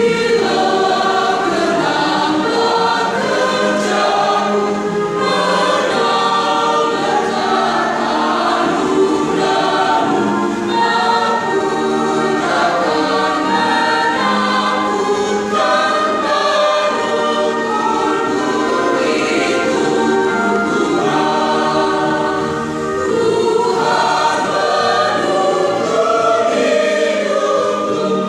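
Mixed choir of men and women singing together in long, unbroken phrases.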